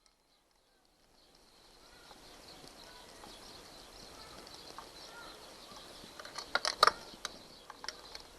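Faint outdoor background with a few short bird chirps, fading in after a moment of silence. Then a quick cluster of sharp clicks and knocks, the loudest sounds, about six and a half seconds in. No engine is running.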